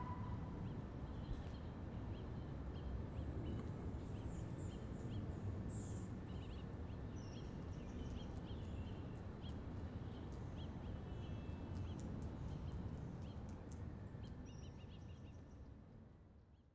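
Outdoor city ambience: a steady low rumble with birds chirping again and again over it, fading out near the end.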